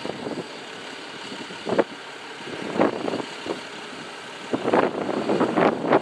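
Diesel engines of a front-end wheel loader and a dump truck running, with several short, louder bursts of noise.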